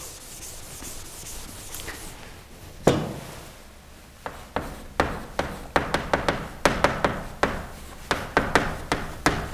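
Blackboard eraser rubbing across a chalkboard for the first couple of seconds, then a single knock about three seconds in. From about four and a half seconds, chalk writing on the blackboard: a quick run of sharp taps and short scrapes, one for each stroke.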